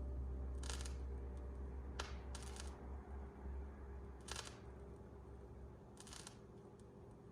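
Vinyl record surface noise with no music playing: a short burst of crackle repeats about every 1.8 seconds, the once-per-turn rhythm of a 33⅓ rpm record, with a sharp pop about two seconds in. A low hum underneath fades away.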